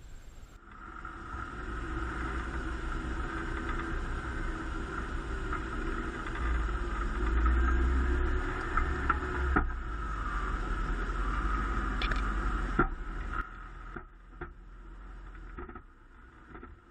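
Vintage Dodge Power Wagon truck driving on a rough trail: engine and drivetrain running steadily under load with a low rumble and a steady whine, a few sharp knocks from the body over bumps, easing off near the end.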